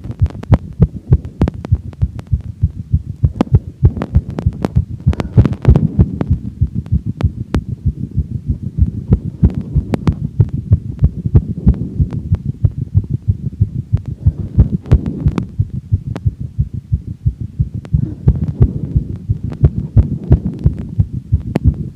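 A human heartbeat picked up through a stethoscope, racing at about 200 beats a minute just after exercise: a fast, even run of low thumps, more than three a second.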